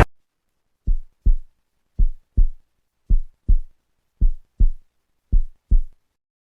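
Heartbeat sound effect: five double thumps, lub-dub, in a slow steady rhythm, low and dull, with dead silence between the beats.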